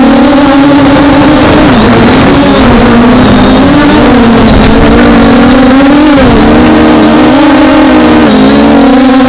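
MJX Bugs B5W quadcopter's brushless motors and propellers whining loudly. The pitch keeps wavering up and down as the motors correct against gusty wind, over a rough low rumble.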